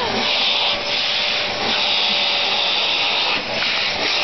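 Dyson vacuum cleaner running steadily as it is drawn over a cat's fur, a steady rush of air over a faint whine, dipping briefly a few times.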